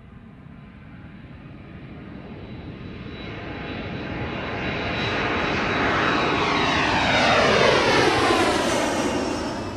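Airliner taking off: its engine noise builds steadily louder over several seconds, with a steady high whine. Near the end, falling sweeps in the tone mark the aircraft passing at its loudest.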